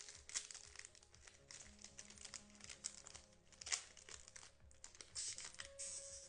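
Irregular crinkling and crackling of trading card packaging being handled, over quiet background music.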